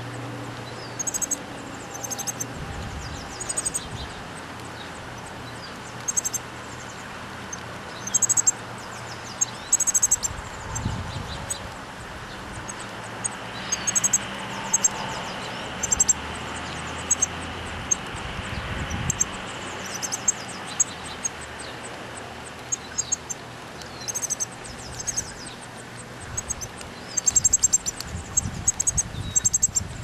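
Songbird chirps: short, high-pitched chirps in quick clusters, repeated every second or two, over a steady low background noise.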